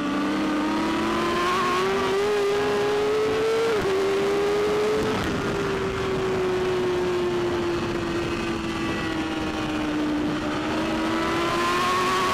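BMW S1000RR superbike's inline-four engine at high revs at race pace. The revs climb for the first few seconds, then drop sharply once as it shifts up. They sag slowly for several seconds and climb again near the end, with steady wind noise throughout.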